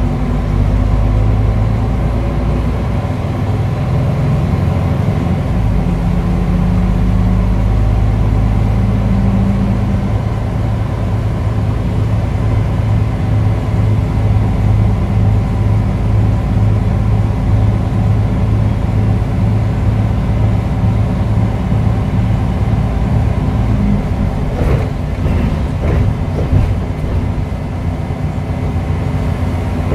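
MAN NL263 Lion's City city bus's six-cylinder diesel engine and drivetrain, heard from inside the cabin at the front, running steadily as the bus drives, with a rising tone early on as it speeds up. A few short knocks or rattles come near the end.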